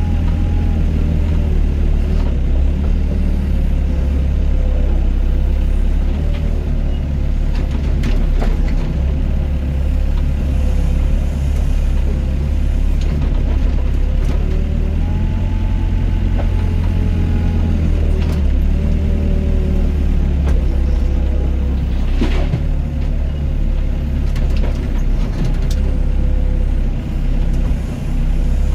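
Doosan DX55 mini excavator running under load, its engine droning steadily while a hydraulic whine rises and falls in pitch every few seconds as the boom and bucket work. A few sharp knocks stand out, the clearest about eight and twenty-two seconds in.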